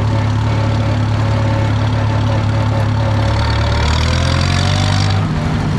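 Engine idling steadily. About three seconds in its note drops a little, and a hiss joins it for a second or two.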